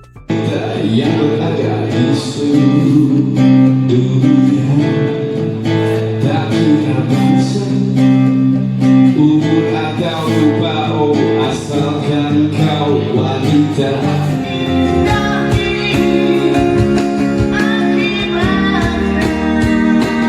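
Music with singing and guitar, starting abruptly; a low bass part comes in about three-quarters of the way through.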